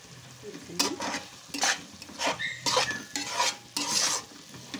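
Steel spatula stirring and scraping through chicken curry in a metal kadai as chilli powder is mixed in. A series of sharp scrapes starts about a second in, with a brief squeal of metal partway through.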